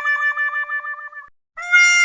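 Looped comic 'wah wah' sound effect played on a brass horn, the sad-trombone phrase of falling notes. The long last note wobbles fast and fades out, and after a short gap the phrase starts again on a higher note.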